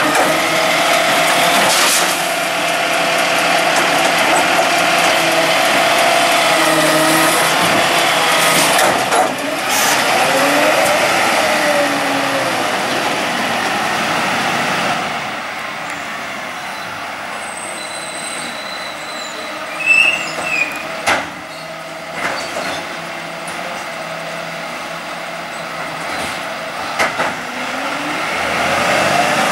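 Volvo side-loading garbage truck running while its automated arm lifts and tips a wheelie bin, the hydraulics whining up and down in pitch. After a cut, a quieter truck engine runs at the kerb, with a few sharp knocks about two-thirds of the way in.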